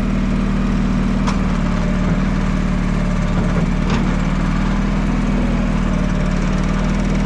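An engine running steadily at an even speed, with a couple of faint clicks over it.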